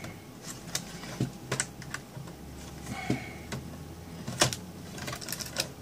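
Irregular light clicks and taps of circuit board and plastic as a Dell Inspiron 5720's motherboard is worked loose and lifted from its plastic base, with a sharper click about three-quarters of the way through.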